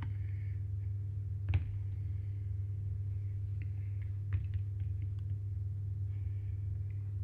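Steady low hum with a few faint clicks and rustles of knitting needles and yarn as a round is knitted.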